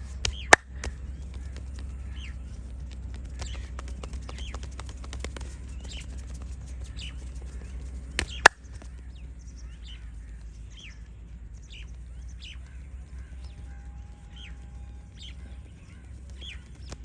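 Two sharp, loud cracks from a head massage, about half a second in and again about eight seconds later, with lighter clicks and taps in between. Small birds chirp repeatedly in the background.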